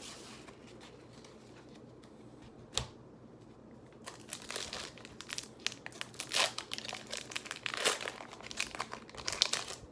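Foil wrapper of a Pokémon booster pack crinkling and tearing as it is opened by hand, starting about four seconds in after a single light tap.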